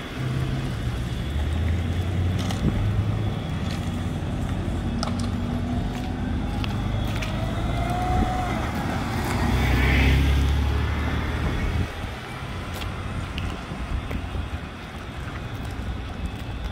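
Steady outdoor rumble, which swells to its loudest about ten seconds in.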